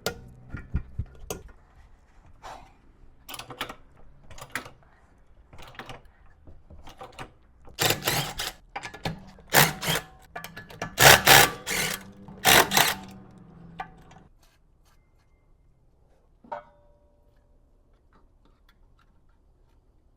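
Hand-tool work on car suspension: scattered metallic clicks and knocks, then several loud bursts of rapid mechanical rattling, like a ratchet or wrench being run, between about 8 and 13 seconds in. After that it falls nearly quiet apart from one sharp click.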